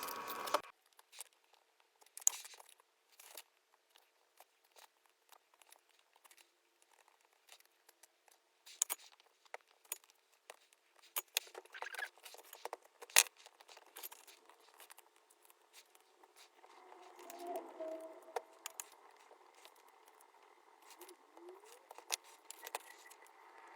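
Scattered small clicks, ticks and taps, irregular and of varying loudness, with a denser stretch of scraping and rustling about two-thirds of the way in: hand tools and glass pieces being handled while repairing a broken copper-foil stained glass panel.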